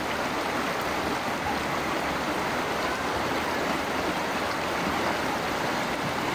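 Fast, shallow river water rushing and rippling over rocks: a steady, even rushing.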